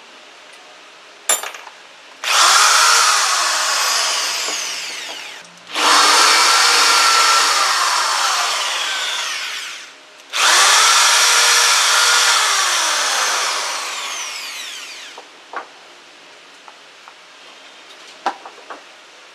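Mailtank impact drill run three times in a row, each run three to five seconds long, starting abruptly at full speed and then easing off in level and pitch. A sharp click sounds just before the first run, and a few light clicks come near the end.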